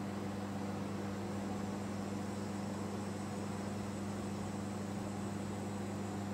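Steady low electrical hum with an even hiss over it, unchanging throughout: room hum from a running appliance or fan.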